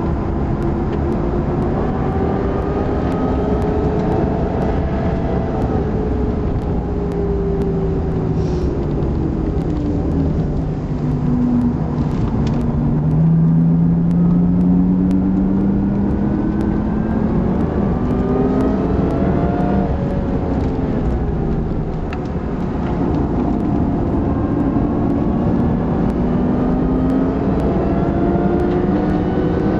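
Supercharged Lexus IS350 3.5-litre V6 driven hard on track, heard from inside the cabin. The revs climb and fall as the car accelerates, shifts and slows for corners, with a long rising pull in the middle and a sharp drop about two-thirds through.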